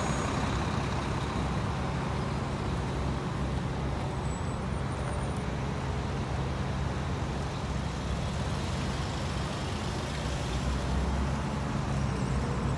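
Vehicle engines idling: a steady low hum that holds level throughout, with no revving.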